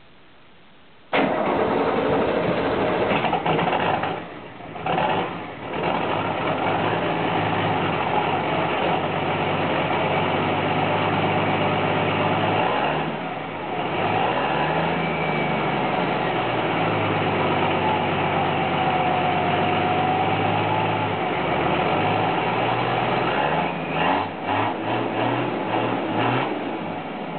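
Nissan Safari turbo engine running, coming in abruptly about a second in. It is revved once, rising and falling, and later blipped several times in quick succession. A faint thin turbo whistle sounds over the engine for a few seconds partway through.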